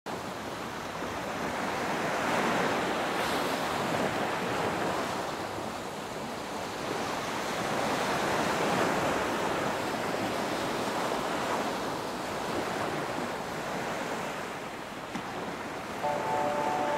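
Ocean surf washing onto a beach, the noise of the waves swelling and fading every few seconds. In the last second a few steady musical tones come in.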